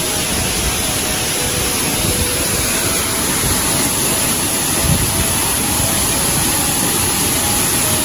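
Steady rush of falling water, loud and unbroken.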